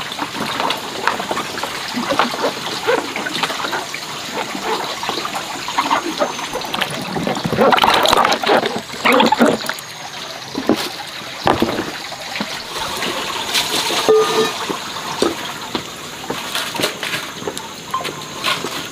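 Water splashing and pouring, with irregular clatters and knocks of things being handled in it. The splashing is loudest about eight to nine and a half seconds in.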